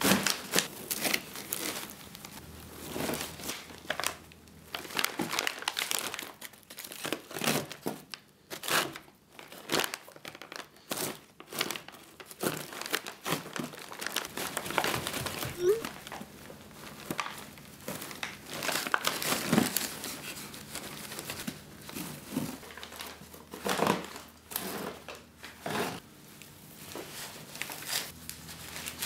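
Plastic-bag filler crinkling and burlap sacking rustling as the sack is handled and its mouth is gathered and tied with twine: irregular crinkles and crackles coming in quick clusters.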